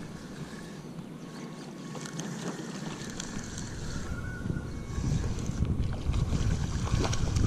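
Wind buffeting the microphone, a low rumbling noise that grows stronger from about three seconds in.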